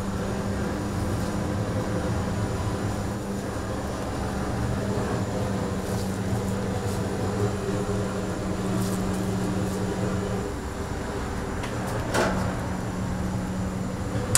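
A steady low mechanical hum with a constant droning tone that drops out for about two seconds near the end, a few faint ticks, and a single sharp knock just after the drone drops out.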